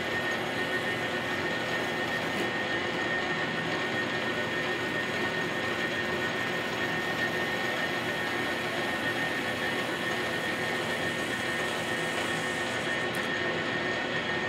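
Metal lathe running steadily while a cutting tool machines a black soft-plastic cylinder, a constant machine noise with a steady high whine over it.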